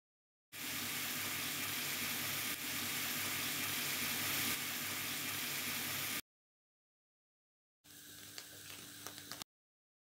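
Spices frying in hot oil in a pan as they are stirred, a steady sizzle for about six seconds. After a short gap, a quieter, brief stretch with a few small pops.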